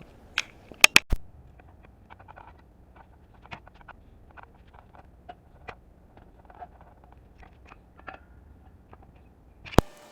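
A few sharp knocks about a second in, then a scatter of faint light clicks and ticks, and one more sharp click near the end.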